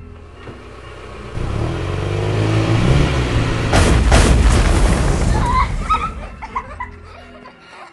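Dramatic sound effect: a deep rumble that swells over a few seconds, with two sharp bangs near the middle, then dies away.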